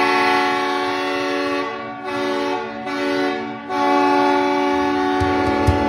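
Kleinn 730 air train horn sounding as a hockey arena goal horn, signalling a goal: one loud sustained chord that dips briefly three times in the middle. Near the end a steady drum beat from the goal song comes in under it.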